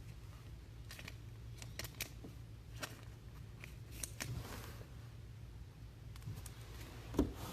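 Trading cards and pack wrappers being handled: faint scattered clicks and short rustles as cards are flipped and slid, with one slightly louder knock near the end, over a low steady hum.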